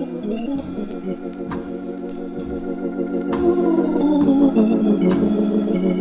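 Jazz Hammond organ playing held, swelling chords over a drum kit, with a cymbal struck about every two seconds. The organ grows louder midway through.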